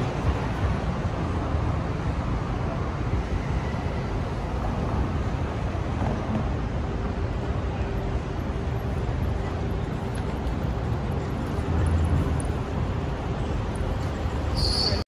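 City street traffic noise: a steady low rumble of passing vehicles and road noise.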